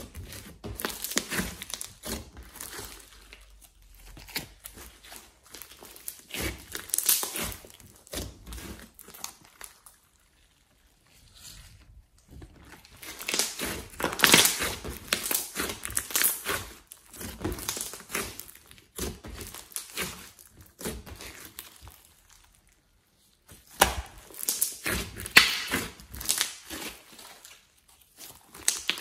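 Hands squeezing and kneading a large lump of glossy slime: irregular sticky crackling and clicking. There are two brief pauses, about a third of the way in and again about three quarters through.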